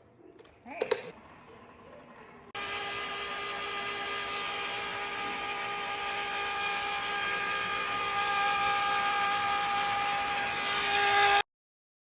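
Electric mixer whipping eggs: a steady motor whine that starts suddenly about two and a half seconds in, runs evenly while growing a little louder, then cuts off abruptly near the end.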